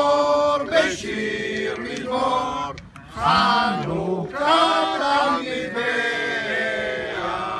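A mixed group of men and children singing together in unison, two long phrases of held notes with a short break about three seconds in.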